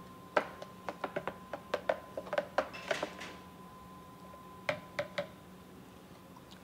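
Spoon clicking and tapping against a clear plastic blender jar while stirring thick salsa: quick, irregular taps for about three seconds, then a few more about five seconds in.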